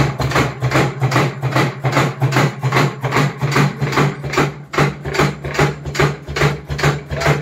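A rapid, even series of percussive strikes on the body, about three to four a second, over a steady low hum. This fits hammer-style percussive soft-tissue work used to loosen tight muscles.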